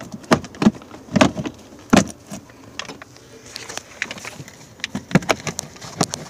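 Irregular hard-plastic knocks and clatter as the unbolted plastic heater box cover is worked loose and pried apart, the loudest knocks in the first two seconds and again about five seconds in.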